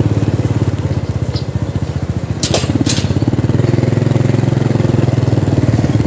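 Motorcycle engine running as the bike is ridden along, its firing pulses steady and growing louder from about halfway. Two sharp clicks come close together about two and a half seconds in.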